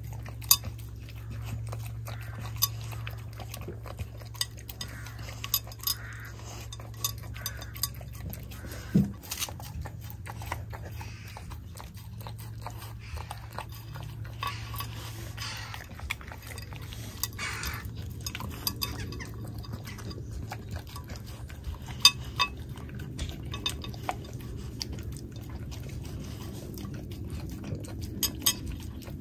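Chow chow puppy eating off a ceramic plate, with many irregular sharp clinks as it eats against the plate.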